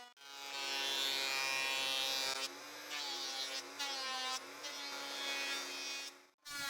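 Makita 2012NB portable thickness planer running and cutting, a steady high-pitched motor whine with the hiss of the cutterhead taking wood off the boards. The sound cuts out abruptly just after the start and again near the end.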